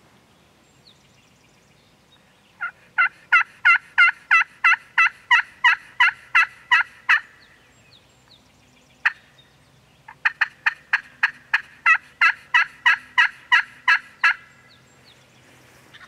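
A hunter's hand-worked turkey call running two long series of hen yelps, about three sharp notes a second. A lone note falls between the two series, and the second series goes quicker.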